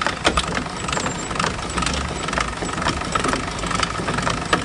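Trailer jockey wheel being wound up by its crank handle: a steady mechanical grinding with short clicks about twice a second.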